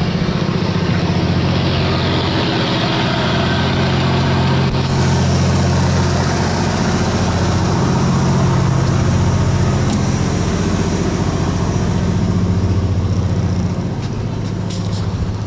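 Fishing boat's engine running steadily, a loud, even low drone that eases slightly near the end.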